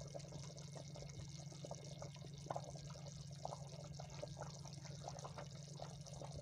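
Hot oil in a kadhai sizzling and crackling around a dollop of besan pakora batter just dropped in, with many small irregular pops over a steady hiss. A steady low hum runs underneath.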